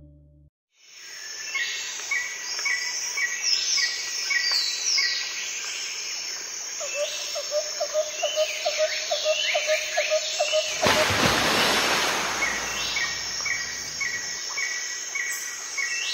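Forest ambience of insects and birds: a steady high insect drone under a short chirp repeated about three times a second and falling whistled bird calls, with a lower pulsing call about four times a second joining in the middle. A burst of rushing noise comes about eleven seconds in.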